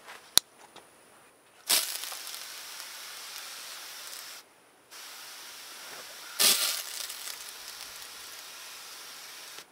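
Garden hose spray nozzle on its mist setting hissing as it sprays a fine mist over dry-poured concrete to wet the top layer. It sprays in two stretches with a short break about four and a half seconds in, and surges louder briefly near the middle of the second stretch. A single sharp click comes just before the spraying begins.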